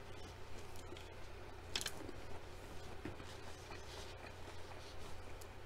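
Close-miked chewing of a mouthful of fried tofu with the mouth closed: faint wet mouth clicks and soft crunches, with a sharper click about two seconds in and another near the end, over a low steady hum.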